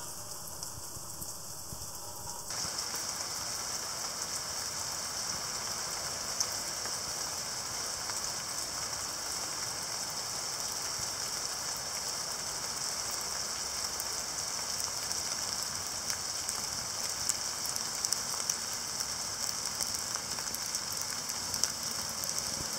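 Steady rain falling: an even hiss with scattered sharper drop ticks, which grows louder about two and a half seconds in.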